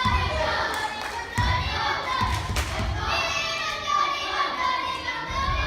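Many voices shouting and calling over one another during an ice hockey game, with a few sharp knocks and thuds of sticks and puck.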